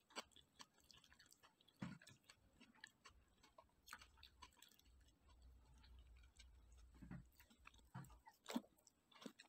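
Near silence: faint room tone with a few scattered soft clicks and a faint low hum through the middle.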